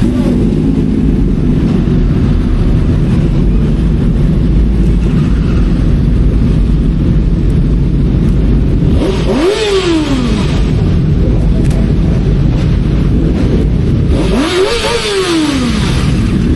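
Yamaha R7 sport bike running on the road with steady engine rumble and wind noise. Twice, about nine and fourteen seconds in, the engine revs up and then back down, each time with a rush of wind.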